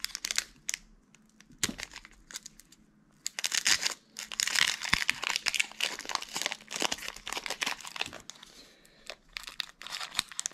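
Foil wrapper of a Pokémon card booster pack crinkling in the hands as it is handled and opened: irregular crackling, with a lull of about two seconds about a second in, then dense crinkling from about three seconds in.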